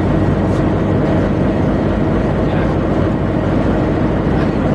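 Heavy diesel machinery aboard a tugboat running with a steady, even drone.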